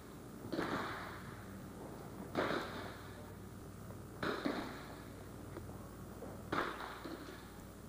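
Smallbore .22 rimfire target rifles firing along a 50 m prone firing line: sharp single shots, four louder ones about two seconds apart, each with a short echo after it.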